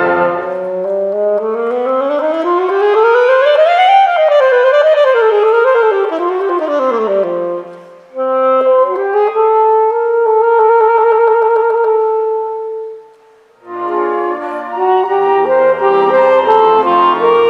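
Solo saxophone. It makes a slow upward glide, then a wavering slide back down. After a short break comes a long held note with vibrato, and after a brief gap, a quick run of notes.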